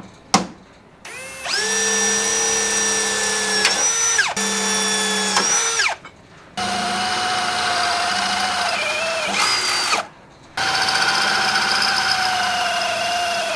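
Electric drill running in three long spells, a steady motor whine with slight shifts in pitch as it bores holes through the steel body panel of a Jeep CJ7. A sharp click comes just before the first spell.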